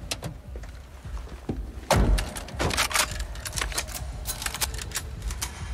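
A heavy thud about two seconds in, with a string of sharp clicks and rattles before and after it.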